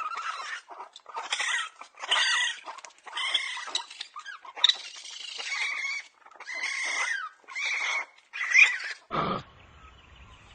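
An animal making a series of short, high-pitched calls, about one a second, with a short lower sound near the end.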